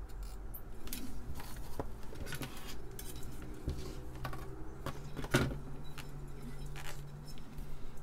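Light clicks, taps and knocks of a printed circuit board being handled and repositioned on a workbench, with one louder knock about five seconds in.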